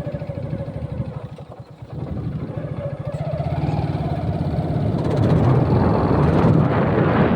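An engine running with a fast, even pulse and a wavering whine above it; it dips briefly about one and a half seconds in, then grows louder over the last couple of seconds.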